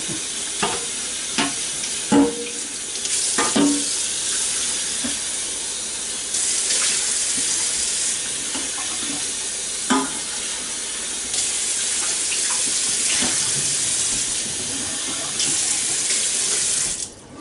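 Kitchen faucet running water onto a black nonstick grill pot being rinsed in a stainless steel sink, with a few short knocks as the pot is handled. The water shuts off near the end.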